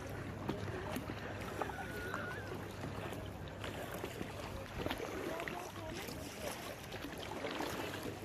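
Water splashing and lapping around a sea canoe being paddled, over a steady low hum.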